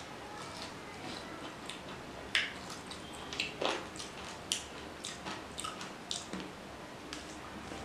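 A person chewing a mouthful of rice and mutton curry close to the microphone, with irregular mouth smacks and clicks.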